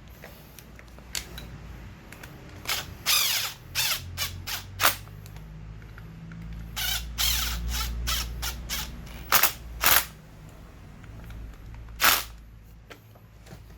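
Short metallic scrapes and clicks as brake pads and their spring clip are worked into a scooter's front disc brake caliper, about a dozen at irregular intervals.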